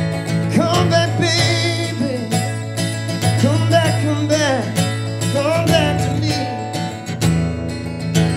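Live acoustic guitar strummed steadily, with a man's sung melody held and bent over the chords from about half a second in until near the end.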